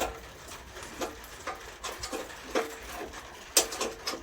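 Steel spanner clinking against a nut and bolt as it is worked by hand: a string of separate light metallic clinks, unevenly spaced about every half second, each with a brief ring.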